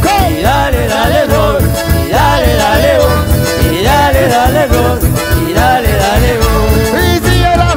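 Live band music: button accordion and bandoneon playing the melody over keyboard, guitar and electric bass, with a steady beat.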